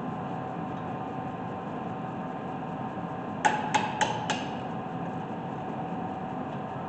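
Four quick, light metallic clinks of a hand tool against metal on the truck's front brake, about four a second, over a steady background hum.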